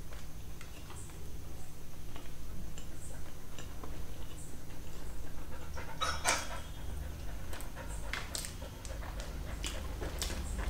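A dog panting close to the microphone, with the wet mouth sounds of someone chewing a burger. A louder crackle comes about six seconds in.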